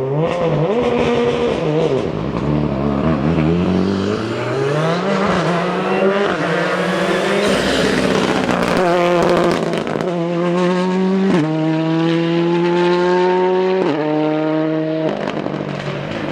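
A rally car's engine at high revs as it comes over a jump, with the revs rising and falling, then accelerating hard away. In the second half it goes up through the gears, the pitch climbing in each gear and dropping at each of several quick upshifts.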